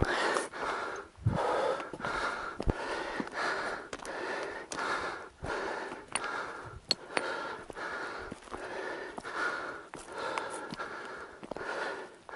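Heavy, rhythmic breathing of a person exerting themselves on foot, with a few sharp clicks among it.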